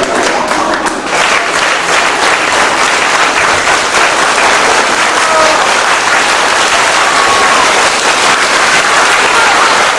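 Audience clapping steadily in a school auditorium, with a few faint voices calling out over it.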